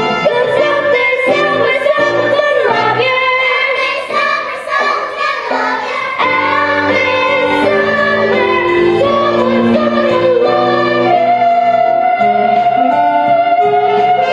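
Singing with musical accompaniment, the voice ending on a long held note.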